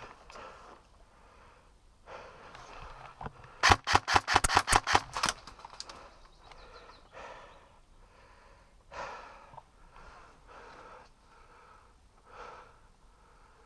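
A quick string of about ten sharp airsoft gun shots, roughly six a second, lasting under two seconds about four seconds in. Around it, soft intermittent rustling noises.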